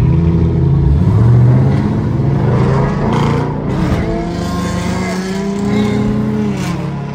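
Car engine revving and accelerating, its pitch rising and falling several times, heard from inside a car.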